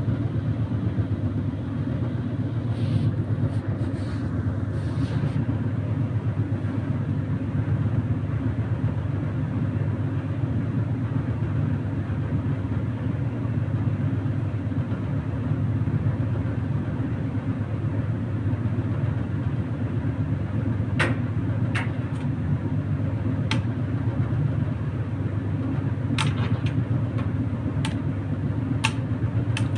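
Indesit tumble dryer running: a steady low hum and rumble of the motor and turning drum, with a few sharp clicks in the second half.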